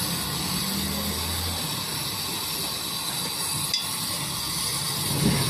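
Steady hiss of gas during a fridge gas-leak repair, with a low hum underneath that stops about one and a half seconds in and a single light click later on.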